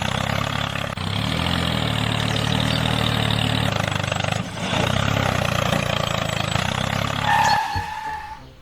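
An engine running steadily with a low drone, for a miniature tractor or road roller. Near the end there is a brief high tone, then the engine sound cuts off suddenly.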